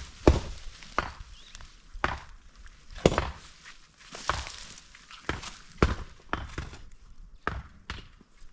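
Repeated chopping or striking blows, about a dozen sharp impacts spaced irregularly, roughly one or two a second.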